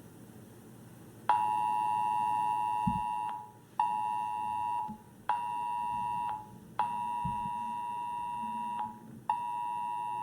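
Wireless Emergency Alert attention signal: a pair of steady tones near 1 kHz, the two-tone alert pitch, beeping in a repeating pattern of one long beep of about two seconds and two short one-second beeps with half-second gaps. It starts about a second in, after a faint hiss.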